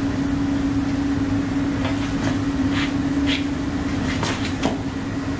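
Steady low background hum with a constant drone, with a few faint, short scratchy sounds between about two and five seconds in.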